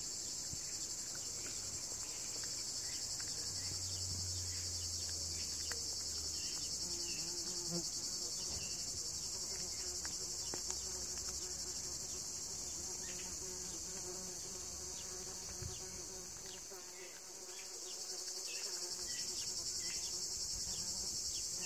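A steady, high-pitched chorus of insects chirring, easing briefly near the end, with faint crunching as a cat chews raw chicken neck and bone.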